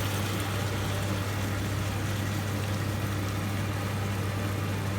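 Sausages sizzling in a frying pan with white wine, a steady hiss over a constant low hum.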